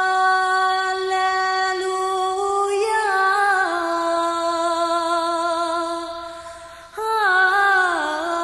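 A woman singing an Assyrian hymn in slow, long held notes, with a wavering ornamental turn about three seconds in. The line fades for a breath shortly before the end, then a new phrase enters and bends downward in a wavering run.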